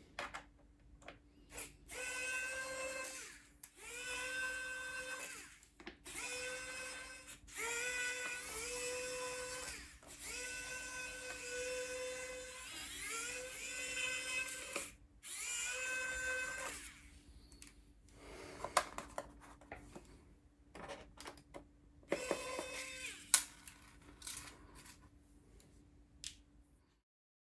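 A small electric precision screwdriver runs in about seven short bursts, each one spinning up in pitch and then holding steady, as screws are backed out. Near the end come scattered sharp clicks and snaps.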